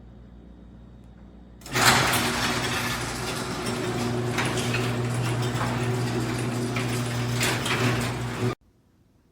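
Garage door opener running as the door moves, a steady motor hum under a rattling clatter. It starts suddenly about two seconds in and cuts off abruptly near the end.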